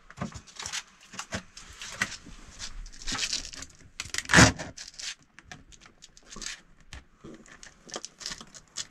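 Sheets of wall tile being handled and pressed onto the wall by hand: crinkling and rustling with scattered small taps, and one louder knock about four and a half seconds in.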